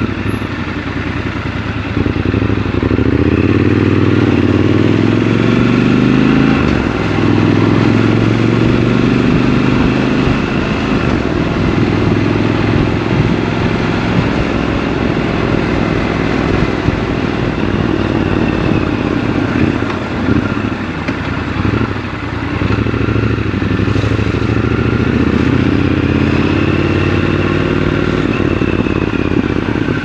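Triumph Scrambler 1200 XC's 1200 cc parallel-twin engine under way on a ride, its pitch rising as it accelerates, stepping down at gear changes and falling as it eases off, then climbing again near the end.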